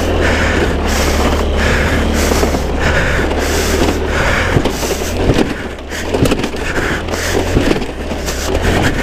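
Chinese scooter's engine running under throttle as it is ridden across snow, picked up by a helmet-mounted camera, with a hiss that swells roughly once a second.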